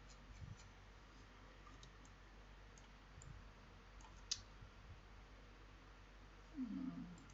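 Near silence with a few faint computer mouse clicks; one sharper click comes about four seconds in, and a short low sound follows near the end.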